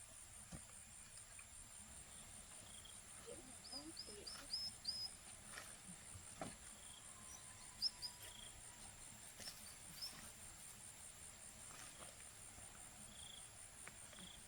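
Insects trilling steadily in a high, evenly pulsing drone, with a quick run of five short high chirps about four seconds in and a few single chirps later. A couple of faint knocks are heard near the middle.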